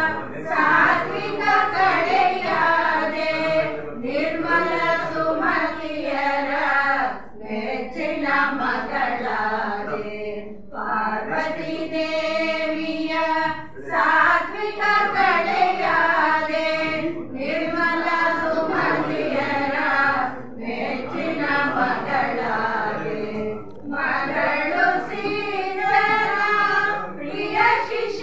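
A small group of women singing a song together into a microphone, in long held phrases with short breaks between them every few seconds.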